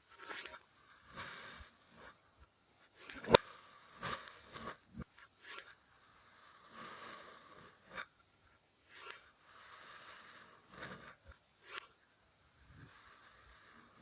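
Kinetic sand being cut and scooped: a run of soft, crumbly scraping and crunching strokes, some short and some drawn out over a second or so. A sharp click a little over three seconds in is the loudest sound.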